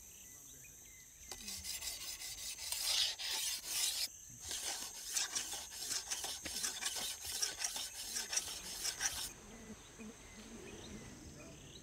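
Rubber-tapping knife scraping into a rubber tree's bark in repeated short rasping strokes, a few a second, cutting the groove that the latex flows from. The strokes stop about nine seconds in.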